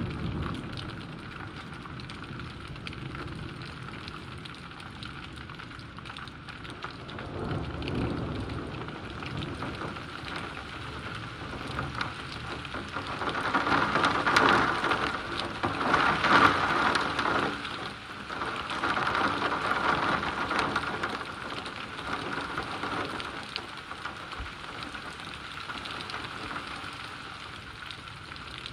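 Steady rain falling and splashing, with thunder rumbling. A low rumble comes about eight seconds in, then the sound swells louder through the middle and eases off again.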